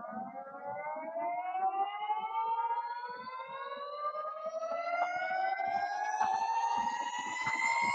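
Begode ET Max electric unicycle's hub motor free-spinning on its stand, its electric whine rising steadily in pitch as the wheel speeds up.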